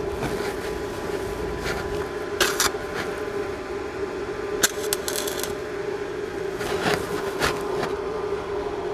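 SUZUKID Sticky 140 stick welder at low current (30 A) on thin 1.6 mm steel plate, its arc catching in short crackling bursts, about three times, over a steady hum.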